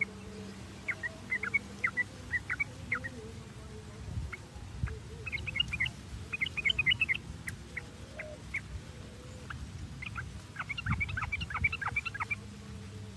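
Yellow-vented bulbuls (trucuk) chattering: a stream of short, sharp notes that thickens into dense flurries about five seconds in and again near the end.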